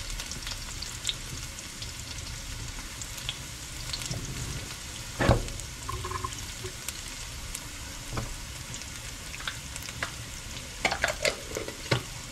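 Onions and eggs frying in oil in a pan on a gas stove, a steady sizzle with scattered crackles. A single loud thump about five seconds in, and a few sharp clicks near the end.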